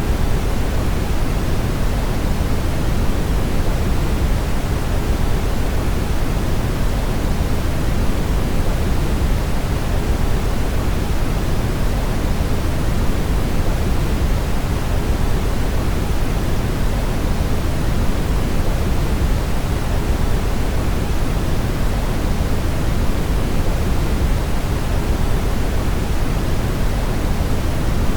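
Steady brown noise: an even, unchanging hiss-rumble weighted heavily toward the low end, with no events or rhythm.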